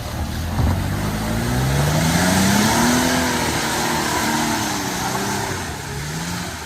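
Toyota Land Cruiser Prado engine revving hard, its pitch climbing over about two seconds and then easing back down, with a rushing noise beneath it, as the vehicle strains for lack of power in forward gear.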